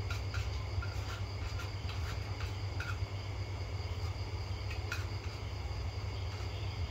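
Crickets trilling steadily, over a constant low hum, with several light clinks of metal spoons against plates in the first few seconds and again about five seconds in.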